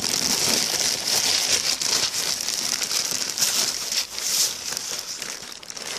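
Plastic bag crinkling and crackling without a break as it is handled and worked open.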